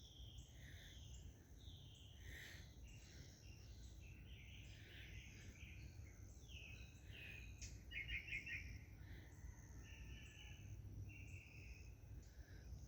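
Several songbirds chirping and singing faintly, with a louder quick run of about five notes about eight seconds in, over a steady low rumble.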